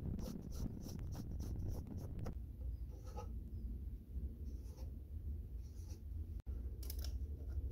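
Pencil scratching on plywood: a quick run of short strokes in the first two seconds or so, a few scattered strokes after, and another cluster near the end. A low steady hum runs underneath.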